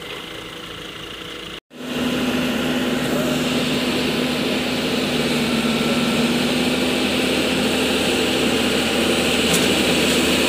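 Heavy diesel engine of earthmoving machinery running steadily. It is quieter at first, breaks off abruptly after about a second and a half, and comes back much louder and closer with a strong steady hum.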